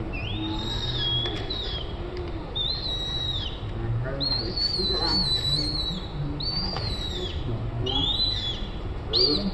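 Baby long-tailed macaque crying: about six high, drawn-out wavering calls, each up to a second or more long and dropping in pitch at the end, the distress cries of an infant wanting its mother.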